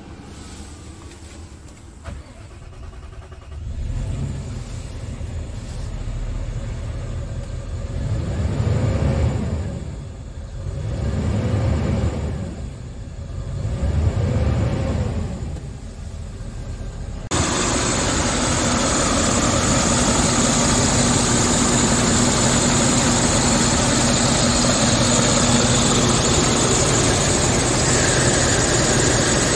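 Scania S tractor unit's diesel engine heard from inside the cab, idling and then revved three times, each rev rising and falling slowly. A little past halfway the sound cuts abruptly to the same engine heard beside the engine bay outside, idling steadily and much louder.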